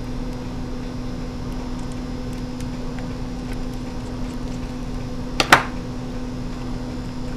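Laptop LCD panel being handled and tilted out of its lid, with light scattered ticks and two sharp clicks close together about five and a half seconds in, over a steady hum.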